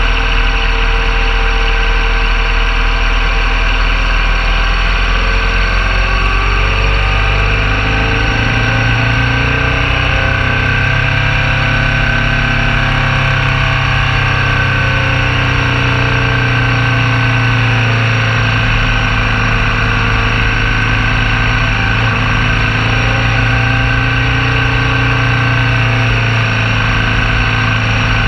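BMW R1200 GS Adventure's boxer-twin engine running under way, with a steady rushing noise over it. The engine note rises about eight seconds in and then holds.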